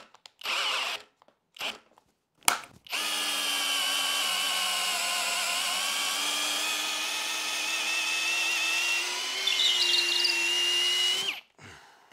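Hilti SFE 2-A12 12-volt cordless drill driver boring a 12 mm auger bit into a wooden beam. Two short bursts of the motor come first, then about eight seconds of steady drilling whose whine sags slightly under load and picks up again before cutting off about a second before the end.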